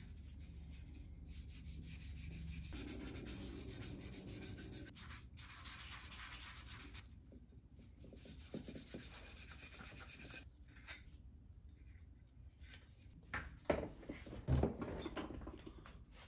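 Gloved hands and a pad rubbing and buffing oil into a carved wooden spoon, the finishing coat. A steady rubbing for about ten seconds, then lighter scattered scuffs and two sharper knocks of handling near the end.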